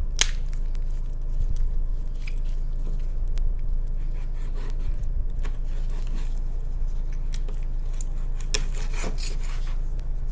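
Knife cutting through raw chicken, with scraping, light crunching at the joints and sharp clicks of the blade, over a steady low hum.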